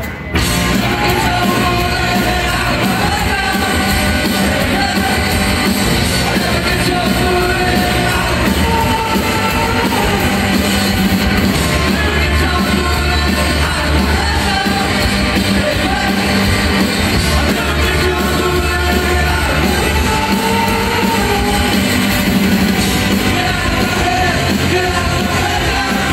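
A live rock band playing loud through a concert hall's PA, electric guitars, bass and drums under a male lead vocal, heard from the audience.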